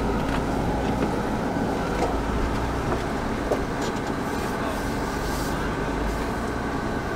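Ford Bronco heard from inside the cabin, its engine and drivetrain giving a low, steady rumble as it crawls over a rocky trail, with a few light knocks.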